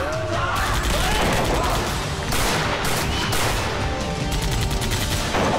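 A rapid exchange of gunfire from handguns, with many shots in quick succession and bullets striking sheet metal.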